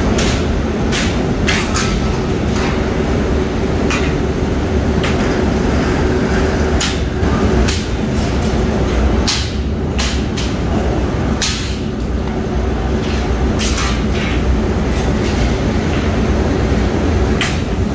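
Steel rolling mill machinery running with a steady loud rumble and hum, over which sharp metal strikes ring out every second or two at an uneven pace: hand hammer blows on steel angle bar.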